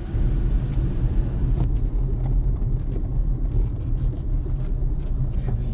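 A low, steady rumble.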